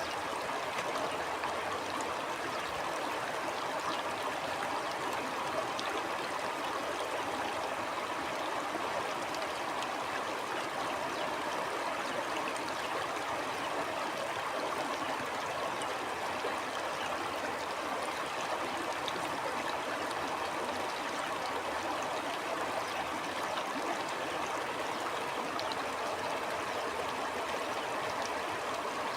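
A stream flowing steadily: an even rush of running water, flecked with small trickles and splashes.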